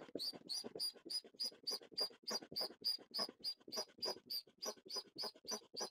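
Sea Eagle foot pump worked steadily, about three to four strokes a second, each stroke a short high-pitched puff of air, inflating an inflatable kayak's side pontoon.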